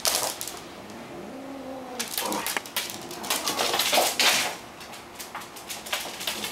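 A Welsh Corgi puppy and a cat in a plastic cone collar play-fighting on a wooden floor: scuffling paws, scrabbling claws and bumps, heaviest from about two to four and a half seconds in. A short low animal call rises and falls about a second and a half in.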